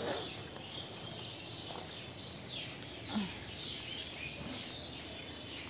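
Outdoor background noise with scattered short bird chirps.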